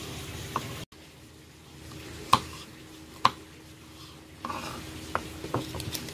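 Knife slicing red chillies on a wooden cutting board: two sharp knocks about a second apart, then a run of lighter taps near the end. A brief stretch of wok sizzle comes first, cut off suddenly about a second in.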